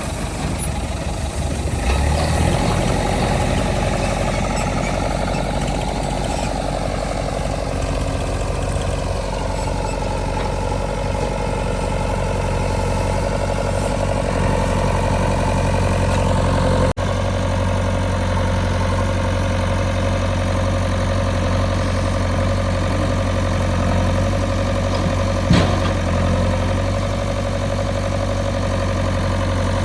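JCB 3DX backhoe loader's diesel engine running steadily under work. Its pitch rises a couple of seconds in and dips and recovers in the middle. There is a very brief dropout just past halfway and a single sharp knock near the end.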